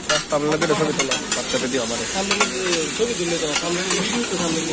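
Chopped onions and herbs sizzling on a hot flat griddle as two metal spatulas stir and scrape them, with sharp clicks of the spatulas against the griddle several times.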